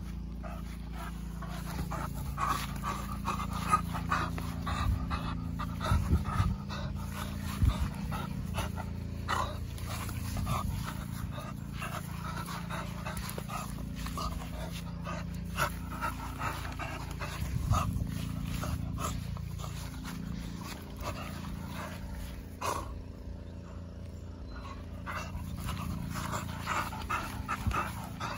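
A puppy panting close to the microphone, with scattered clicks and rustles through it.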